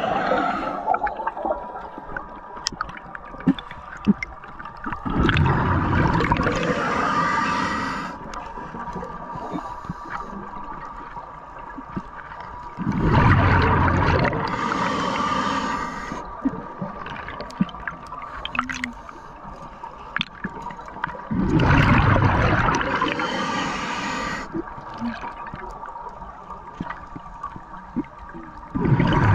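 A scuba diver's exhaled bubbles rushing from the regulator, heard underwater. There are long bursts roughly every eight seconds, with quieter breathing gaps between them.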